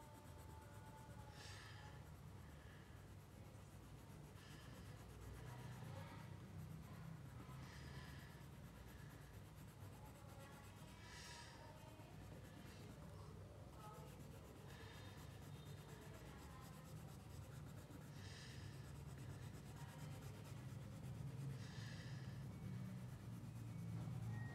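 Faint scratching of a green colored pencil shading on paper, in short bouts of strokes every few seconds, over a steady low hum.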